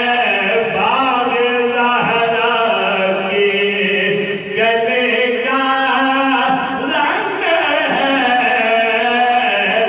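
Men's voices singing a devotional naat into microphones with no instruments, in long held, gliding phrases like a chant.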